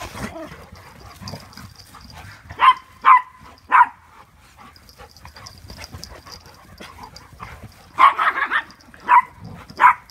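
Dogs barking in short, sharp barks while playing: three barks about half a second apart around the third second, a quick flurry about eight seconds in, then two more near the end.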